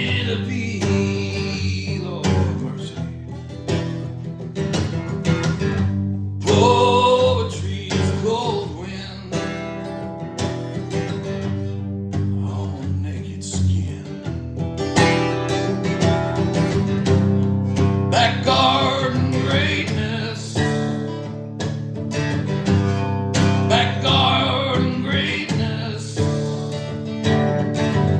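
Instrumental guitar music: a plucked and strummed guitar playing a continuous passage over held low notes.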